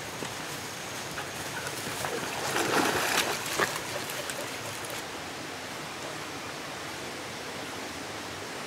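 Steady rush of flowing stream water, with a burst of splashing about two to four seconds in as a golden retriever wades off the pool's edge into deeper water.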